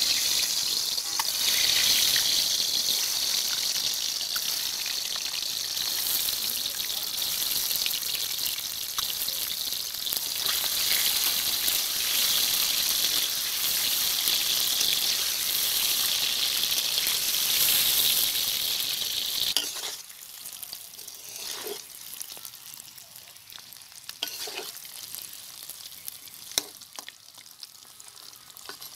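Peeled boiled duck eggs frying in hot oil in a steel karahi, with a loud, steady sizzling hiss. About two-thirds of the way in the sizzle drops off suddenly to a quieter frying hiss, broken by a few crackles and knocks of the spatula against the pan.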